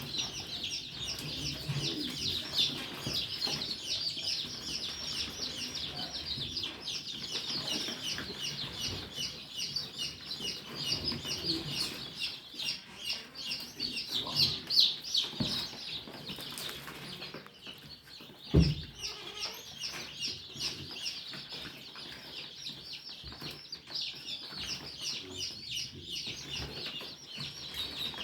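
Many Improved Kienyeji chicks peeping continuously in dense, overlapping high peeps, with a single thump about two-thirds of the way through.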